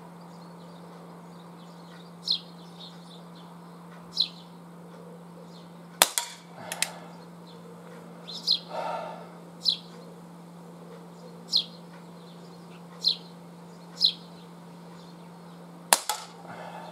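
Two shots from an ASG Schofield CO2 air revolver firing pellets, about ten seconds apart. The first is followed by a couple of metallic knocks as a tin can is hit and knocked over. A bird chirps repeatedly between the shots.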